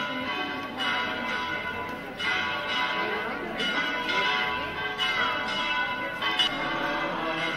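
Church bells ringing a peal, with a fresh stroke about every one and a half seconds and the tones hanging on between strokes.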